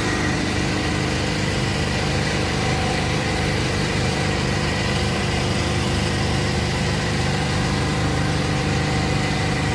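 A machine running steadily: an even hum with several held tones that does not change.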